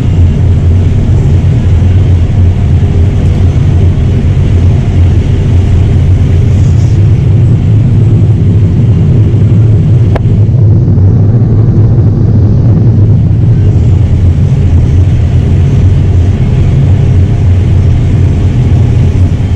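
Vehicle engine running steadily: a loud, even low drone with no breaks.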